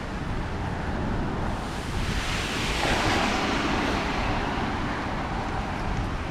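Strong wind buffeting the microphone with a steady low rumble, and a rushing hiss that swells about two seconds in and fades out over the next few seconds.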